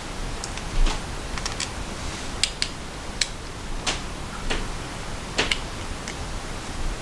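About a dozen light, sharp metal clicks and ticks at irregular intervals, from small screws, a Torx driver and knife parts being handled as the scale screws go back in, over a steady background hiss.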